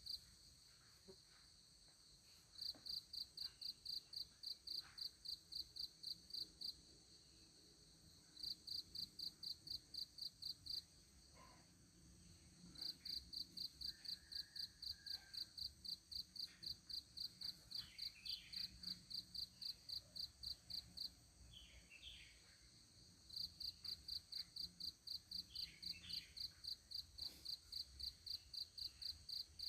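Insect chirping steadily in runs of several seconds, a few high chirps a second, stopping briefly between runs. Faint bird chirps come through now and then.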